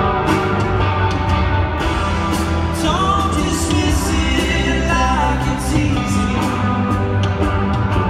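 Live band playing a folk-rock song: strummed acoustic and electric guitars over a steady drum beat, with a melody line that slides in pitch about three and five seconds in. Heard from far back in an arena, with the hall's echo.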